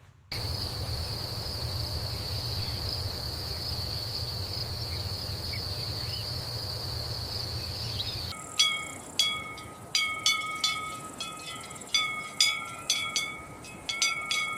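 A steady high insect buzz over a low rumble starts suddenly. About eight seconds in it gives way to a quick irregular run of metallic clanks, each ringing briefly with a few bell-like tones.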